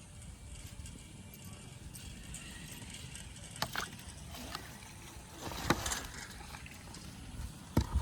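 Three short, sharp knocks or clicks, about two seconds apart, over a steady low background noise.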